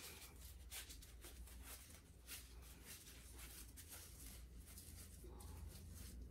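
Near silence: room tone with a faint low hum and a few soft ticks.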